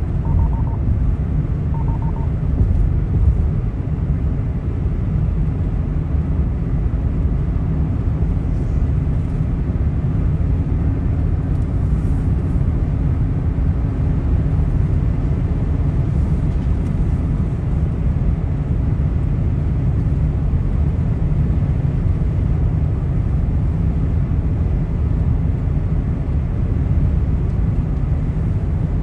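Steady road and engine rumble heard from inside a car cabin driving at highway speed, with a faint steady hum above it. Two faint short beeps sound about half a second and two seconds in.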